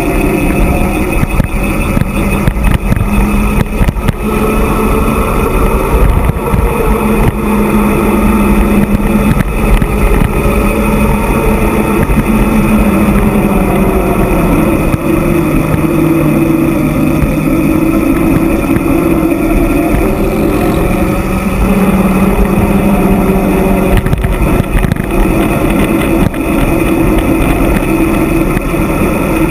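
Wind rushing over the microphone with tyre hum from a mountain bike rolling fast down an asphalt road. A steady droning hum drifts lower and higher in pitch as the speed changes.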